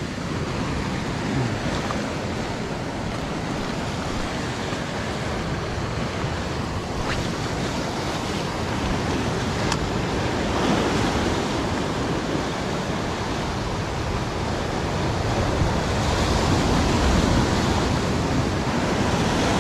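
Sea surf breaking and washing over rocks, a steady rush that surges louder about halfway through and again near the end.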